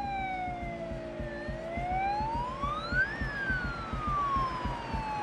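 Ambulance siren on a slow wail. The pitch falls, climbs to a peak about three seconds in, then falls again. Vehicle engine and road noise run underneath.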